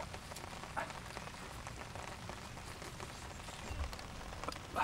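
Soft crackling and small clicks of crisp roasted crocodile meat being pulled apart by hand, with three short chirps.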